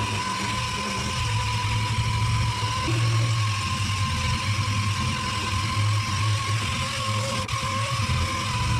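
Dual-action (DA) orbital sander running steadily against primed car body panels, sanding down resin primer, with a steady high whine over a low, uneven hum.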